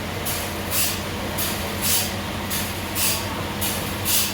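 Machinery running with a steady low hum and a regular hiss that repeats about twice a second.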